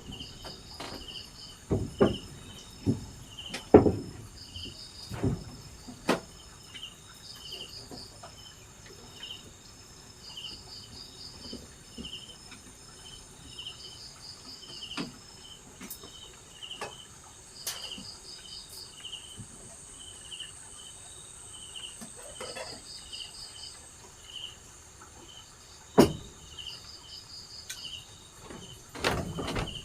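Insects chirping in short, evenly repeated calls, with trills in between, against a faint steady hiss. Occasional sharp knocks and taps cut in, a few clustered near the start and one loud one later on.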